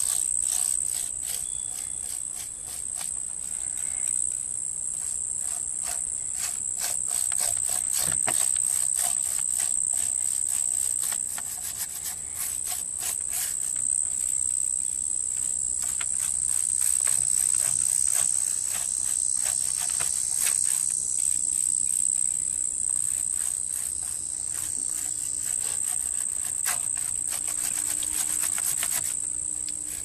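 Insect chorus: a steady high-pitched trill made of rapid pulses.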